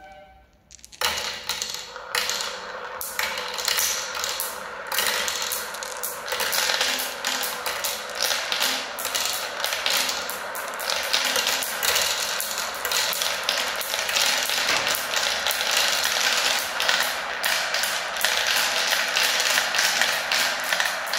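Many small balls rolling and clattering round the funnels and through the tubes of a clear plastic marble run, a dense, continuous rattle of clicks that starts about a second in.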